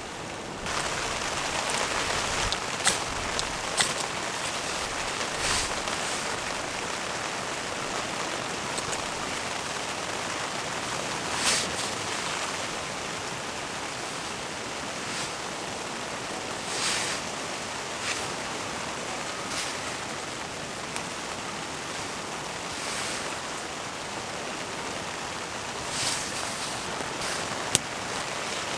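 Steady wash of outdoor water noise, with scattered sharp ticks every few seconds, like drops striking a surface.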